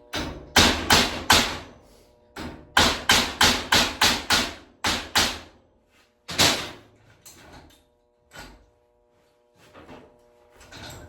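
Hammer blows on metal, straightening a metal piece: a run of four quick strikes, a faster run of about seven, then a few single, more spaced blows.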